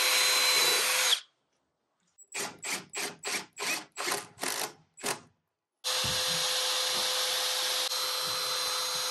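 Power drill drilling into wood: a short run, then about nine quick stop-start trigger pulses, then a steady run of about three seconds near the end.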